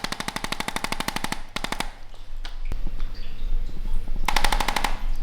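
Rapid, evenly spaced mechanical tapping, about a dozen strikes a second, each with a slight ring. It stops about a second and a half in, with a brief burst after, and starts again near the end.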